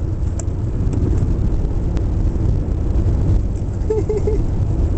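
Steady low rumble like a moving car heard from inside, with three short voice-like sounds about four seconds in.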